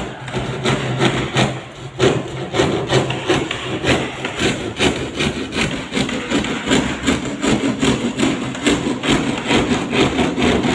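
Rhythmic rubbing and scraping strokes from house-painting work with paint rollers and a paint bucket, about three strokes a second, going steadily on.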